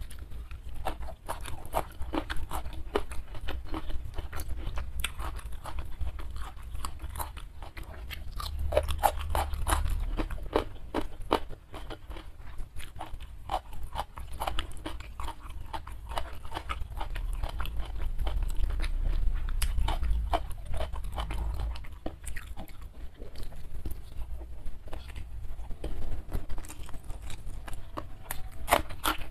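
Close-miked chewing of a mouthful of food: many crisp, irregular crunches and wet mouth clicks over a low rumble, in bursts that thicken and thin as she eats.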